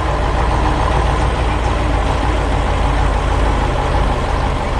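Heavy construction machine's engine running steadily, low-pitched with a noisy wash above it.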